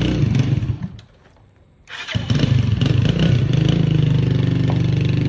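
Motorcycle engine running, cutting out about a second in, then started again about two seconds in and settling into a steady idle.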